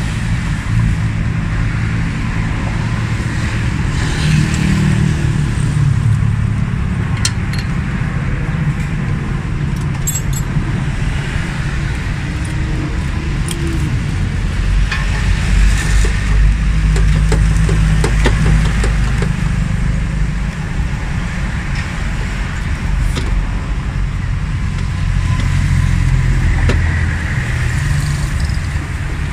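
Scattered light metallic clicks and clinks from hands handling parts at a car alternator and its belt pulley, over a steady low rumble.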